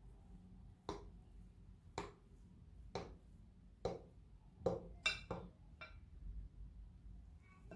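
Knife cutting down through a frosted layer cake and clicking against the glass dish beneath it. Sharp clicks come about once a second, then four in quick succession about five seconds in.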